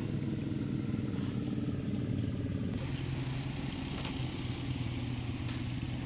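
An engine running steadily at an even speed throughout.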